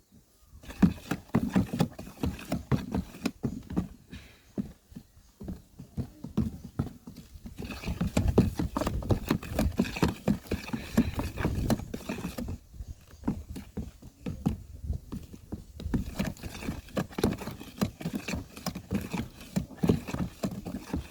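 Rapid, irregular clattering knocks of a utensil stirring a thick mixture in a container, easing off for a couple of seconds about halfway through.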